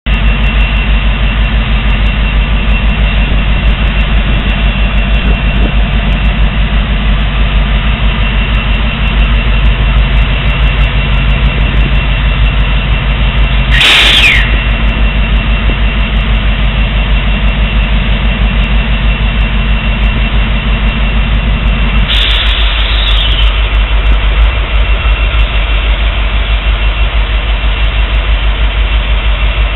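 Norfolk Southern diesel-electric locomotives idling, a loud steady low diesel rumble with an even throb. About halfway through and again later, a brief sharp noise with a falling whine cuts in, and after the second one the engine note gets lower.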